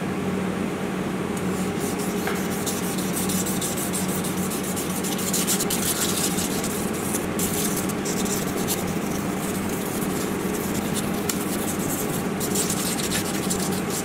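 A small piece of 1200-grit sandpaper rubbed by hand across the milled face of a knife blade, in quick repeated scratchy strokes, smoothing over the machining lines.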